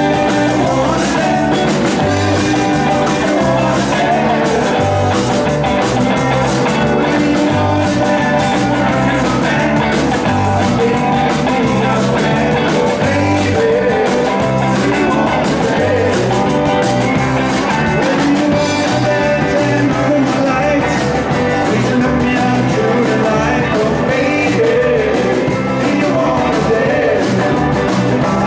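Live rock band playing: electric guitar, bass guitar and drums, loud and steady with a regular beat.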